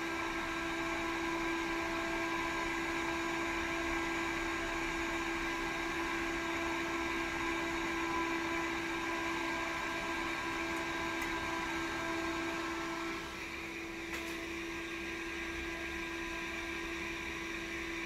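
Cooling fan blowing over a ZVS induction heater, making a steady whir with a constant hum tone and a few higher steady tones. About two thirds of the way through some of the higher tones drop out and the sound gets slightly quieter.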